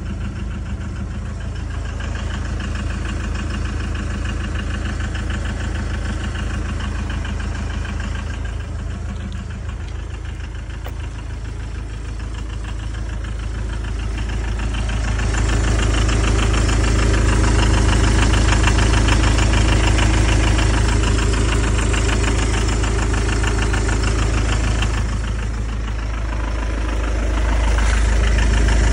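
Iveco Irisbus Way 50C18 minibus's 3.0-litre turbodiesel engine idling steadily, growing louder about halfway through and again near the end.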